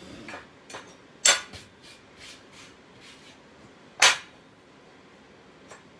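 Short pieces of square steel tube knocking and clinking against a steel welding table as they are set down and moved into place, with two louder knocks about a second in and about four seconds in, and lighter taps between.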